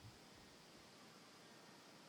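Near silence: a faint, steady hiss of room tone, with one soft low thump right at the start.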